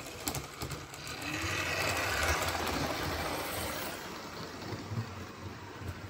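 Model train running past on the layout's track, its wheels and motor swelling to a rushing sound about two seconds in and fading again as it goes by, with a few light clicks near the start over a steady low hum.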